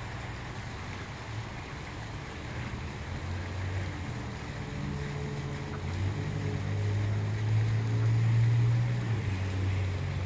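A low, steady mechanical hum under a light hiss of wind or water; the hum grows louder about six seconds in and eases off just after nine.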